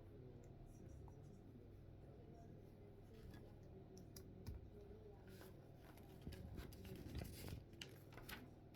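Faint clicks and scratches of small plastic Lego pieces being handled and pressed together, coming more often in the second half.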